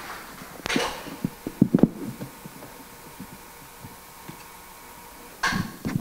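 A handful of soft, low thumps and knocks about a second in, as the presenter moves onto the stage, then quiet hall room tone with a faint steady hum, and a short rustle near the end.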